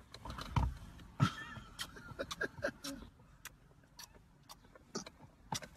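A small child kissing a man's cheek over and over: a string of about ten quick kiss smacks, with rustling from the hug early on.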